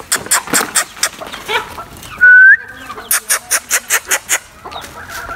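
A person calling chickens with rapid lip-smacking clicks, about six a second, broken about two seconds in by one short, loud whistle that rises sharply at the end.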